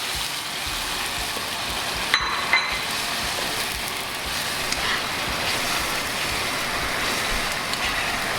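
Minced lemongrass, shallots, garlic and chili sizzling in hot oil with a little water just added, while being stirred in the pan. Two sharp clicks about two seconds in.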